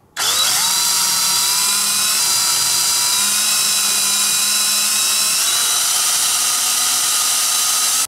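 Cordless drill running with a 5/16-inch bit, boring through a clear plastic GoPro Hero2 camera housing. The motor whine rises as it spins up just after the start, holds steady, and cuts off suddenly at the end.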